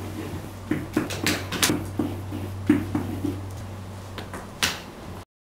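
Pen tapping and scraping on an interactive whiteboard as a word is handwritten: irregular short strokes over a steady low hum. The sound cuts out completely for a moment near the end.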